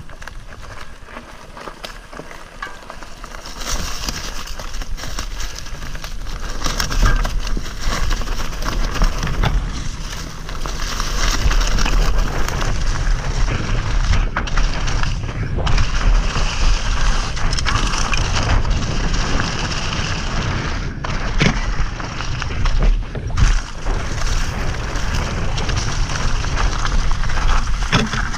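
Electric mountain bike ridden along a dirt singletrack strewn with dry leaves and twigs: tyres crunching over the litter, the bike knocking and rattling over bumps, and wind rushing on the microphone. It gets louder about four seconds in as the speed picks up.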